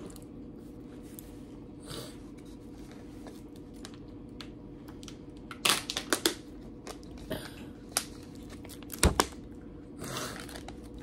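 Someone eating a crunchy wafer biscuit: scattered crunches and crinkles of chewing and handling the snack and its wrapper, over a steady low hum.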